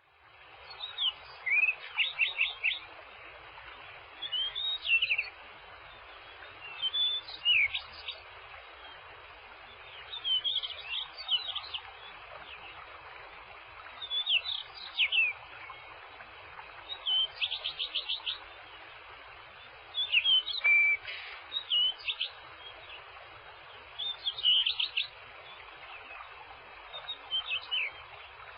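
A songbird singing a short chirping phrase over and over, about every three seconds, over a steady even hiss.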